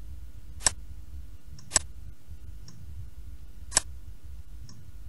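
Computer mouse clicks: three sharp clicks, the second about a second after the first and the third two seconds later, with a few fainter clicks between, over a steady low hum of microphone noise.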